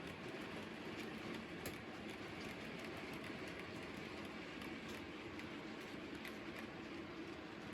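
Coal train of freight wagons rolling steadily past: a continuous rumble with a few faint clicks from the wheels.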